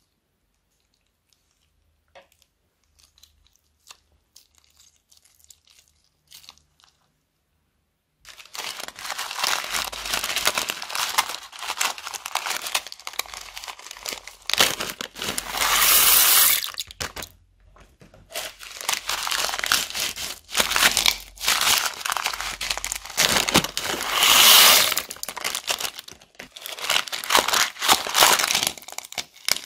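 Plastic bags of slime squeezed and crumpled by hand: a dense crinkling and crackling that starts about eight seconds in, after a stretch of near silence with a few faint ticks, and breaks off briefly about halfway through.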